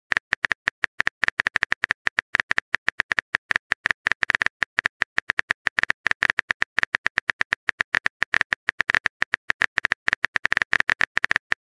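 Phone on-screen keyboard typing sound effect: a rapid, uneven run of sharp key clicks as a text message is typed out.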